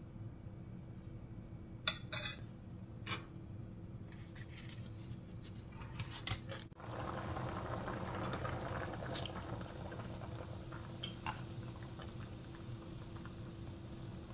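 A pot of bean soup on the stove. A metal ladle clinks against the pot a couple of times in the first few seconds, then from about seven seconds in the soup bubbles at a steady boil with scattered pops, all over a constant low hum.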